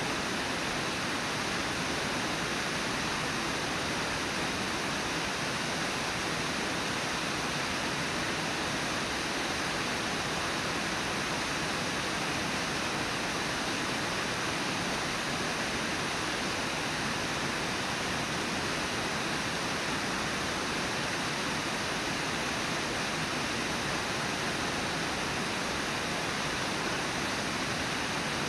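Steady rush of river water pouring over a low waterfall.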